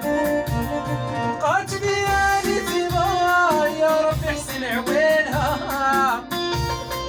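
Live Moroccan folk-pop music: an ornamented lead melody with bending, wavering notes over a regular drum beat.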